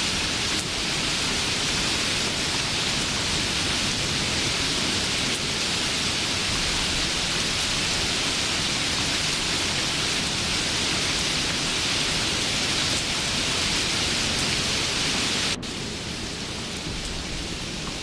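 Steady rain, an even hiss. About fifteen seconds in it cuts abruptly to a quieter, duller rain sound.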